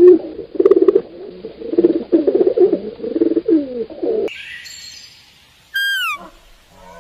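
A bird's low, pulsed calls, repeated many times in quick succession like cooing or soft clucking. About four seconds in, the recording cuts to a hissy background, followed by one short, high call that falls in pitch.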